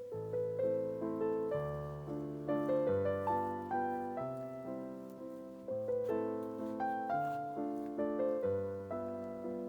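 Background piano music: a gentle melody over slowly changing bass notes, each note struck and fading.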